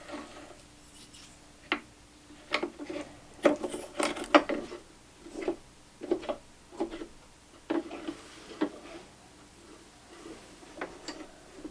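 Hands handling small hard objects and fabric: a dozen or so irregular clicks and knocks mixed with short rubbing sounds, over a faint steady hum.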